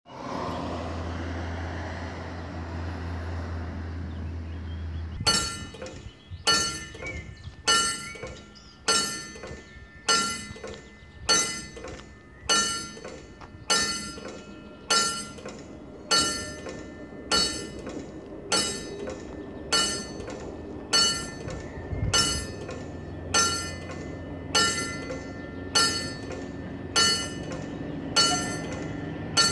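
Level crossing warning bell starting up about five seconds in and then striking steadily, about once every 1.2 seconds, each stroke ringing out: the crossing has been triggered by an approaching train. Before the bell starts there is a low steady hum.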